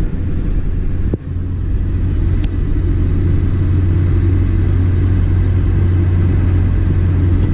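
Steady low rumble of a vehicle being driven, engine and road noise heard from inside the cabin, with one short click about a second in.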